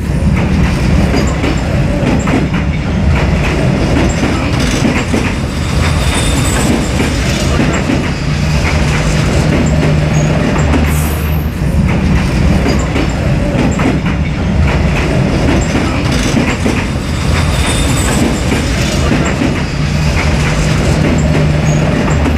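A train passing only inches away along a narrow street-side track, loud and steady throughout.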